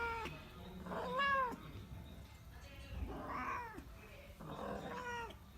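Female domestic cat in heat calling: four drawn-out meows in a row, each rising and then falling in pitch, the second the loudest. This is the loud estrus call of an unspayed female.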